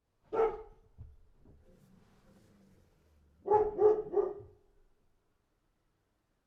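A dog barking: a single bark, then about three seconds later a quick run of three barks.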